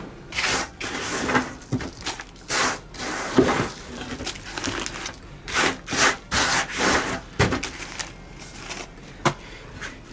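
A hand scraping and brushing loose soil and dry dracaena bark scraps across a work surface, with dry bark rustling and knocking against a plastic pot. The scrapes are irregular, with a couple of sharp knocks.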